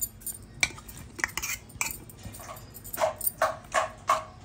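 A spoon knocking and scraping against a steel mixer-grinder jar as thick chutney is scraped out into a bowl, a few sharp knocks about half a second apart. In the second half comes a quick run of about five short pitched sounds.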